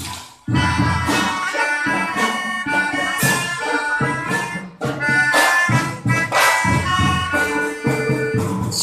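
A section of melodicas (pianikas) playing a tune together in marching-band style over a steady low drum beat, coming in about half a second in after a brief gap.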